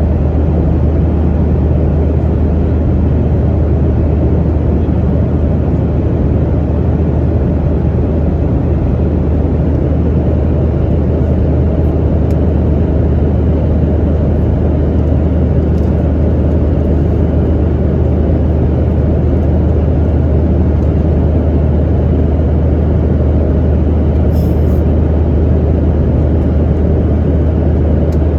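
Steady low drone of a Boeing 737-900ER's jet engines and airflow heard from inside the passenger cabin, holding an even level throughout.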